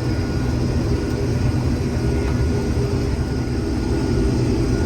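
Combine harvester running steadily while cutting soybeans: a low engine drone, with a faint steady high whine over it.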